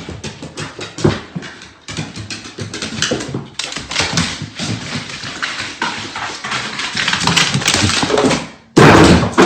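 Dog sounds amid scuffling and knocking, with a sudden loud burst of noise near the end.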